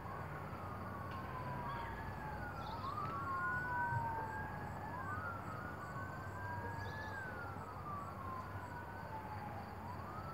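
Two emergency-vehicle sirens wailing at once and out of step, each slowly rising and falling in pitch, over a steady low rumble.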